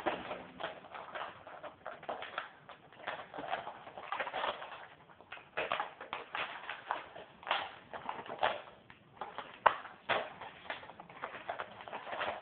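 Cardboard and plastic blister packaging being handled and pulled open: irregular crinkling, rustling and small clicks, some louder than others.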